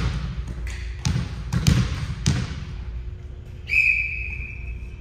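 Volleyball being struck and bouncing on a gym floor: four sharp thuds in the first two and a half seconds. Then a single steady, high whistle blast begins about 3.7 s in and lasts about a second.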